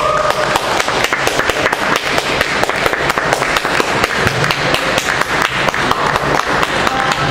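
Spectators applauding: many separate hand claps overlapping in an irregular patter.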